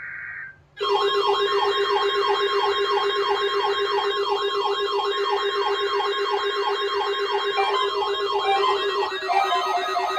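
Electronic siren sounding loudly: a rapid, repeated rising-and-falling wail over a steady low tone, starting abruptly just under a second in and changing to a different warble near the end.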